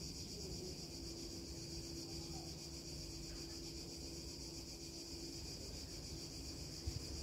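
Steady high-pitched chirring of insects, over a faint steady hum and a low rumble. Two soft knocks near the end.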